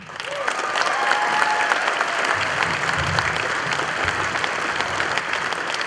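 Crowd applauding steadily, starting abruptly, with a few cheers in the first couple of seconds.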